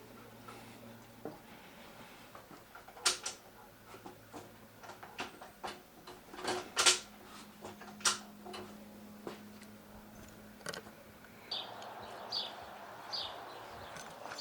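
Scattered clicks and light knocks of tools and parts being handled, with a faint steady hum in the background. Near the end a steady hiss starts, with a few short high chirps.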